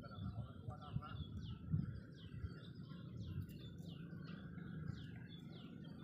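A bird singing a quick series of short, falling notes, about two to three a second, over a low rumble.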